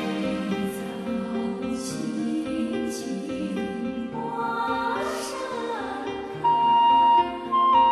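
Background music: soft, sustained chords with gentle swells. A high, held melody line comes in louder about six and a half seconds in.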